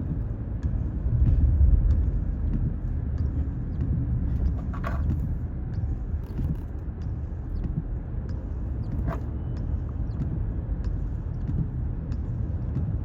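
Car driving, heard from inside the cabin: a steady low rumble of engine and road noise that swells briefly about a second in, with a couple of faint clicks.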